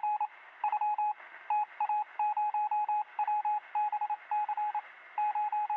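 Electronic beep sound effect: short beeps all at one pitch, coming in rapid clusters of several with brief gaps, like a text-typing or coded-message effect, over a faint hiss in a thin, telephone-like sound.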